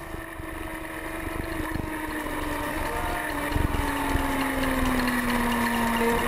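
Sport bike's engine running hard on track, its note sliding slowly lower, with wind rushing past.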